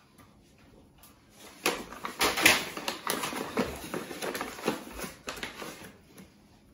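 Plastic measuring cup scooping flour from a paper flour bag and knocking it into a glass mixing bowl: irregular scrapes, rustles and light taps, busiest about two and a half seconds in.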